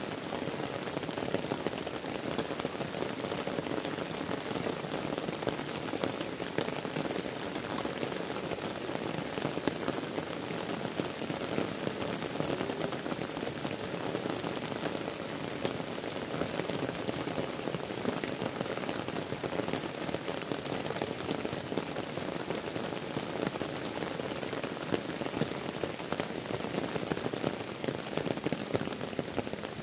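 Heavy rain falling steadily on the surface of a lake and on the leaves and ground at its edge, an even hiss with a few sharper drop hits now and then.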